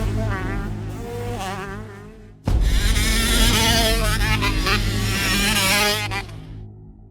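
Motocross bike engines revving hard with a high buzz, pitch rising and falling with the throttle. The sound fades out, cuts about two and a half seconds in to louder revving, and fades again near the end.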